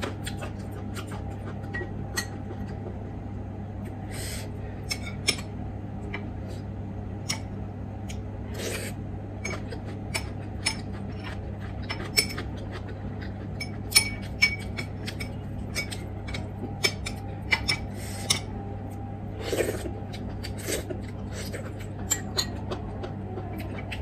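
Metal spoon clinking and scraping against small ceramic bowls as someone eats, in many short, irregular clicks, with a steady low hum underneath.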